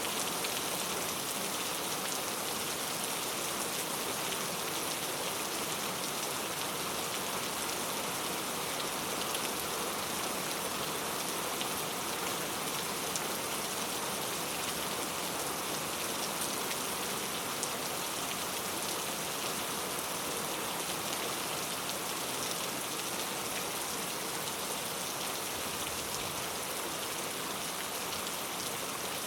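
Heavy rain falling steadily: a dense, even hiss of countless drops with no thunder.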